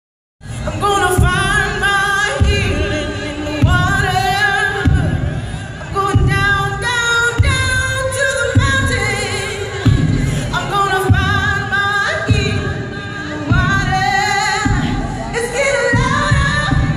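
A woman singing live with band accompaniment over an arena sound system, holding long notes with a wavering vibrato.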